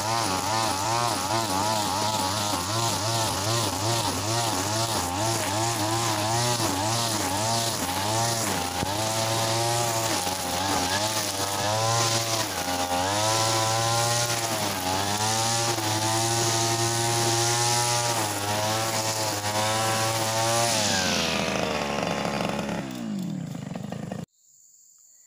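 Backpack brush cutter's small engine running at high revs while cutting grass, its pitch repeatedly rising and falling as the throttle is worked. Near the end the revs drop away toward idle, then the sound cuts off suddenly.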